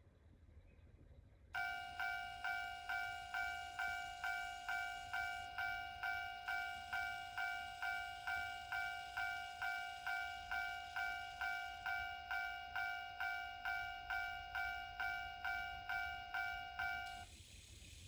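A TOMIX TCS Automatic Level Crossing II model sounding its electronic Japanese level-crossing warning bell, a repeated two-tone-like 'kan-kan' chime at about two strikes a second. It is running its power-on start-up routine and cuts off suddenly about a second before the end.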